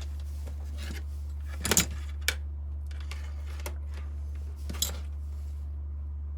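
A few short clicks and light metallic rattles of small wire and crimp terminals being handled, about two seconds in and again near five seconds, over a steady low electrical hum.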